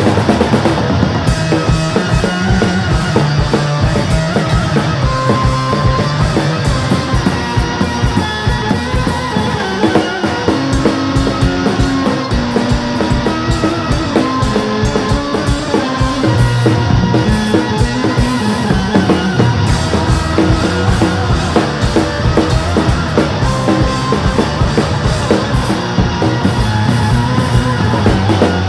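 Live rock band playing: guitar and drum kit with a steady, driving beat.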